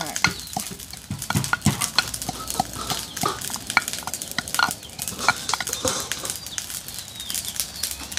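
Kitchen utensils clinking and scraping against cookware while food is stirred: a run of irregular taps and clicks, some with a short metallic ring.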